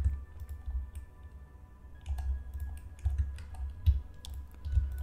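Computer keyboard keystrokes and mouse clicks at irregular intervals, with dull low thumps among them.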